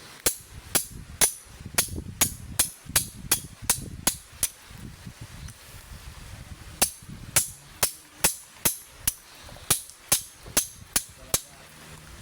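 A hammer striking metal in a steady series of sharp blows, about two to three a second. It runs in two spells of about a dozen blows each, with a pause of about two seconds in the middle.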